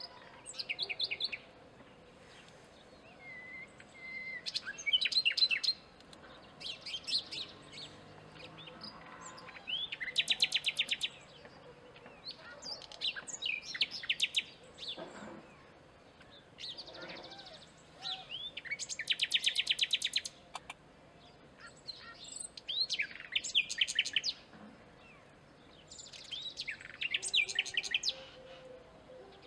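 Common nightingale singing: a string of short, varied phrases, many built of fast repeated notes, with brief pauses between them.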